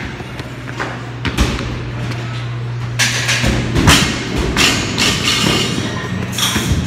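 A pair of 20-pound dumbbells thudding down onto a gym floor several times during dumbbell burpees, over a steady low hum and gym background noise.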